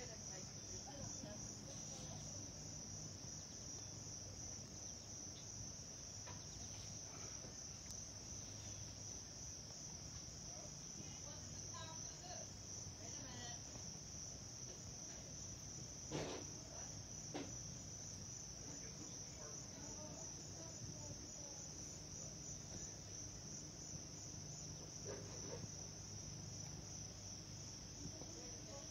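A steady, high-pitched chorus of insects, with a faint low hum underneath and a brief knock about halfway through.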